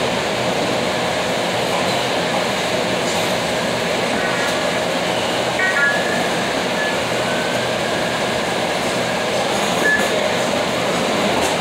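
Steady mechanical running noise with a constant rattle, and a few brief faint high squeaks in the middle and again near the end.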